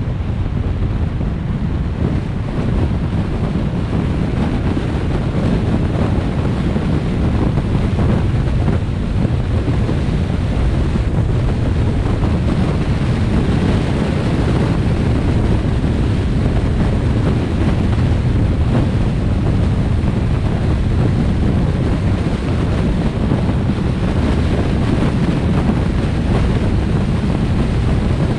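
Steady wind buffeting the microphone of a car driving along a highway, a heavy low rumble mixed with road noise.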